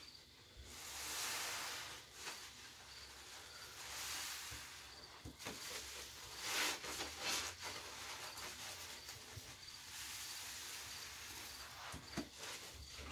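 Soapy sponges squeezed and kneaded by rubber-gloved hands in a basin of thick suds: wet squishing and the fizzing crackle of foam, coming in several louder swells with small wet clicks between.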